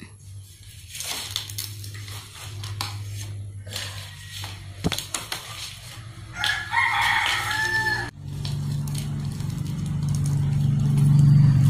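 A rooster crows once, about six and a half seconds in, lasting under two seconds, over scattered crackles and rustles of coconut palm leaflets being woven by hand. From about eight seconds a low steady hum sets in and grows louder toward the end.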